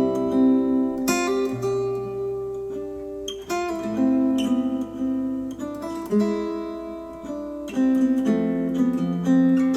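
Acoustic guitar music: plucked notes and strummed chords that ring on, one after another, played back through hi-fi bookshelf speakers.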